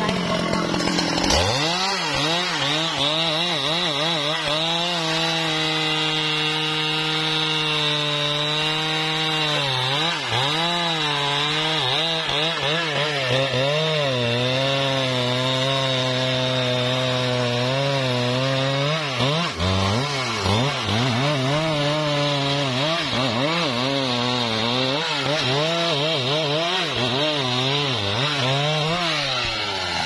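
Husqvarna 395 XP two-stroke chainsaw revved up about a second in, then cutting at full throttle through a thick trembesi trunk. Its engine note sags and wavers as the chain loads up in the wood, and falls away near the end as the cut goes through.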